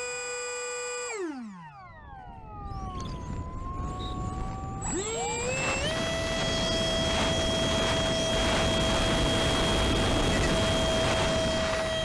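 Brushless electric motor and propeller of an RC flying wing whining steadily, heard from a camera mounted on the wing, with wind rushing over it. About a second in the motor is throttled back and the whine drops away while the wing glides. Around five seconds in it spools back up to a steady, slightly higher whine.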